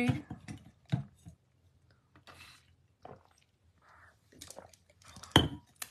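Scattered small clicks and handling noises as a hand moves things about on a craft desk, with one sharper tap near the end.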